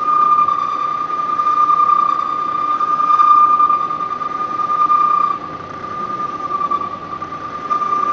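CNC lathe cutting long chuck jaws, a steady high-pitched whine as the tool feeds outward along the bore; it weakens somewhat a little past halfway.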